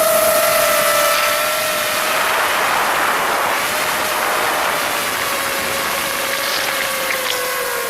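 FPV drone's electric motors and propellers whining steadily, with a short rush of noisier sound about two seconds in and the pitch easing slightly lower toward the end.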